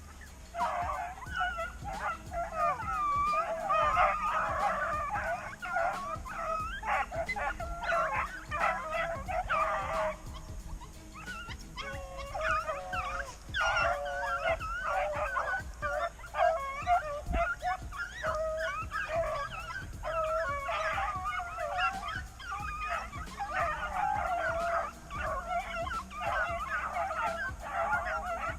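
A pack of rabbit-hunting dogs baying together in many overlapping voices, the chorus of dogs running a rabbit's trail, with a brief lull about ten seconds in.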